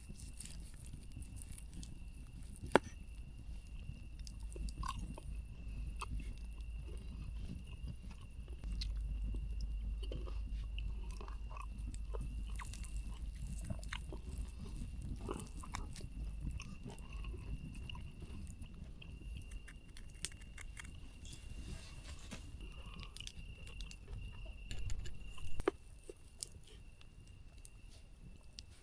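Close-up chewing and biting of food, with many small wet clicks and crunches over a low rumble. A faint steady high tone runs underneath, and there is a louder burst of sounds near the end.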